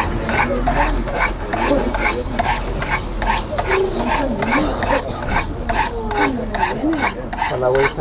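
A Leatherman multitool's steel blade scraped in quick alternating strokes down the ceramic rods of a Spyderco Sharpmaker, about four strokes a second, each a short rasp.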